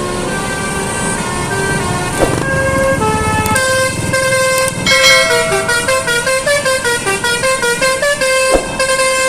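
Basuri telolet musical car horn playing a tune of stepping notes, faster and busier from about three and a half seconds in, over traffic noise.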